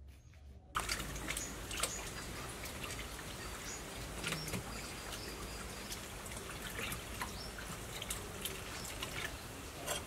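Hands washing chicken legs in water in a stainless steel bowl: sloshing, small splashes and drips, starting under a second in.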